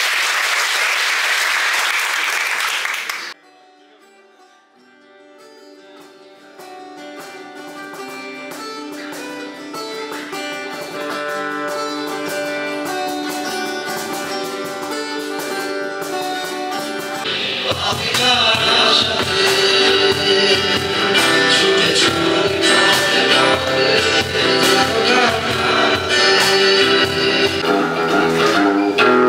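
An audience applauding, cut off suddenly after about three seconds. Acoustic guitar music with singing then fades in, growing fuller and louder a little past halfway.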